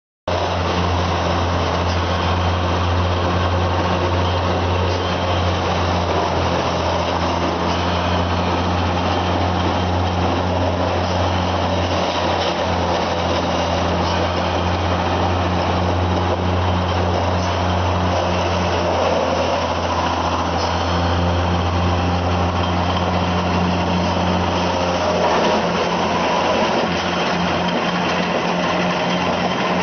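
Wood chipper running steadily, its engine giving a constant low hum under a dense mechanical noise. It cuts in suddenly just after the start.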